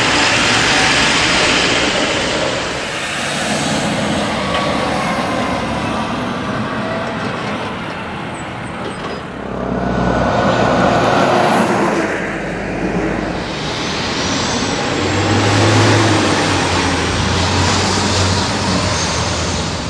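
Road traffic with trucks passing: tyre noise and diesel engines running, with the sound changing abruptly twice as it moves from one roadside to another. A low, steady diesel engine hum stands out near the end.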